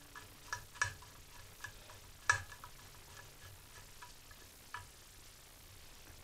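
A few light, irregular clicks and ticks as a screwdriver turns the carburetor mounting bolts on a Homelite string trimmer. The loudest click comes a little over two seconds in.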